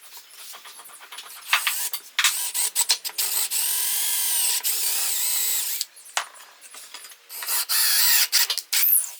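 Small high-speed power tool run in bursts: a short one, a long run of about four seconds whose pitch dips and recovers as it bears on the work, then another run near the end.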